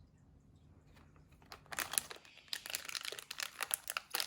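Packaging crinkling and crackling as it is handled during an unboxing. It is very quiet for about the first second and a half, then a dense run of sharp crinkles builds up.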